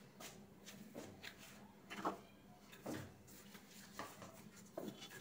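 Quiet kitchen room tone with a faint steady hum and five faint knocks and taps, about one a second, as of things being handled.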